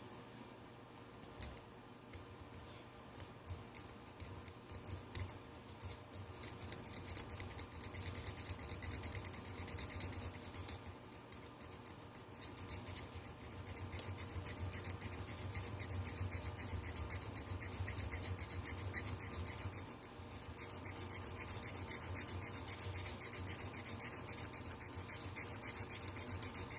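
A knife blade scraping and prying at a phone's touchscreen in rapid scratchy strokes. The strokes are faint at first, build up about six seconds in, and break off briefly around twenty seconds.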